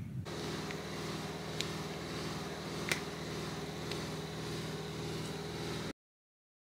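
A steady low mechanical hum with a few faint clicks, cutting off suddenly to silence near the end.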